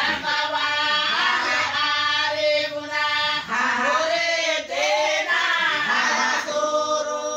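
Women singing a song together, several voices holding long notes that slide up and down in pitch.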